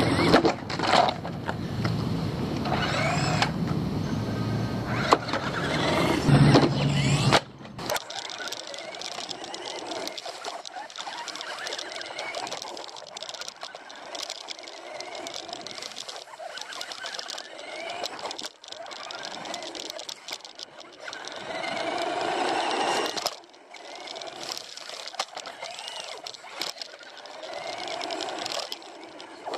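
RC desert buggy driving on the road: its motor whine rises and falls with the throttle over the rattle and crunch of tyres and chassis on the pavement. After about seven seconds it is heard from a camera mounted on the buggy, quieter and with less rumble.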